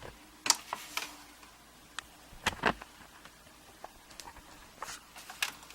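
Light clicks and knocks from equipment being handled on a workbench, likely a pinning tray and lamp being set in place. The loudest is a double knock about two and a half seconds in, with a few lighter ticks near the end.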